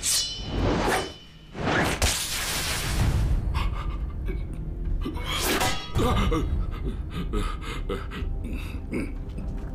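Soundtrack music under sword-fight sound effects: quick whooshes and two sharp hits, the second about six seconds in. After it comes a man's rapid, frightened gasping breaths.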